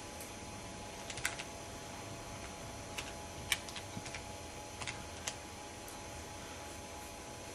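Scientific calculator keys being pressed: a run of short, irregular plastic clicks as a square root is keyed in and worked out, stopping about five and a half seconds in.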